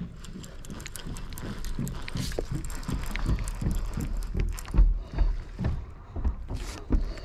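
Spinning rod and reel being worked against a hooked red drum: irregular clicks and knocks from the reel and from handling, over a low rumble that swells in the middle, with a loud thump about five seconds in.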